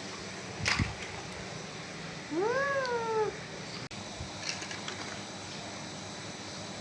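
A single drawn-out call, rising then falling in pitch, lasting about a second, preceded a couple of seconds earlier by a sharp knock.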